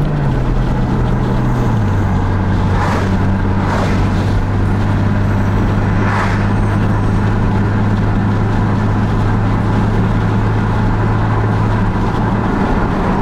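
Car engine drone and road noise heard from inside the cabin while driving steadily along a highway. The engine's low hum steps down in pitch about two seconds in, and there are a few brief whooshes.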